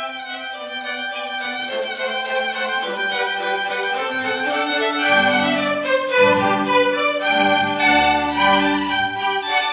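Background string music with a violin melody, building louder about halfway through as lower notes come in.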